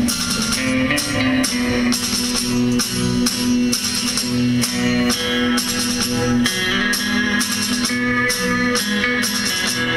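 Music with plucked strings over a steady, jingling percussion beat.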